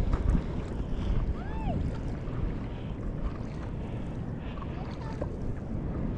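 Wind buffeting the microphone over choppy sea water, with lapping and sloshing close by. A couple of brief arching calls sound about a second and a half in.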